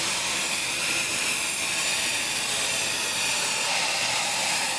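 Steady hiss and high whine of a jet aircraft's turbine.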